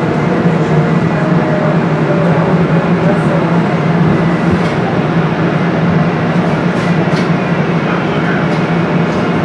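A DART light rail train heard from inside the car while it runs: a steady low hum under a constant broad rumble of wheels on track.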